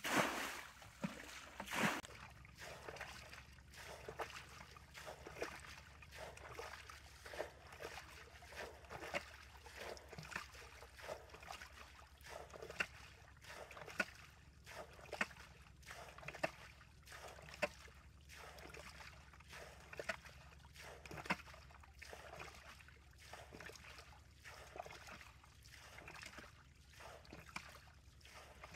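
Bucketfuls of muddy water splash out onto the ditch bed in the first two seconds. Then water trickles from a concrete culvert pipe, with many small, irregular drips and splashes.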